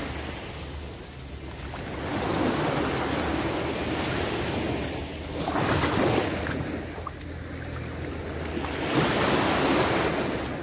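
Small sea waves breaking and washing up a sandy beach, the surf swelling three times, around two, six and nine seconds in, over a low rumble of wind on the microphone.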